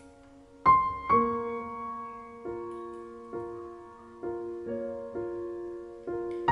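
Background piano music: a slow melody of single notes, each struck and left to ring and fade before the next.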